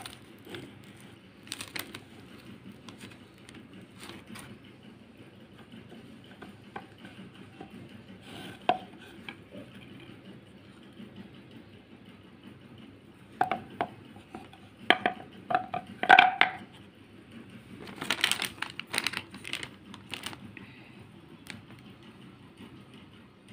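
Light taps and clicks of a slab of white chocolate compound being handled and set down on a board, with a cluster of sharper knocks about two-thirds of the way through and a short burst of rustling a few seconds later.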